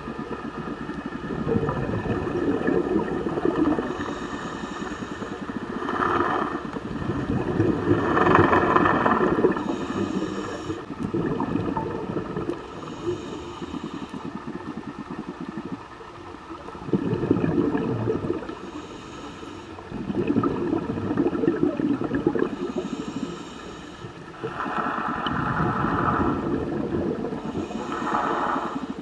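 Scuba breathing heard underwater: a regulator's airy breaths and bubbling exhalations coming in swells every few seconds, some with a brighter hiss of bubbles.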